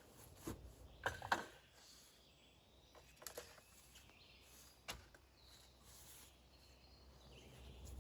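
Faint scattered knocks and clunks, a small cluster about a second in and single ones later, over quiet outdoor background with faint bird chirps; no chainsaw is running.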